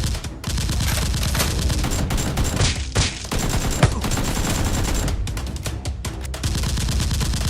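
Rapid, sustained gunfire sounds in fast bursts, with a few louder single shots standing out, over background music.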